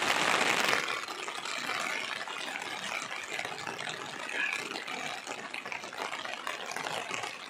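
Steady rain falling, an even hiss that is a little louder in the first second.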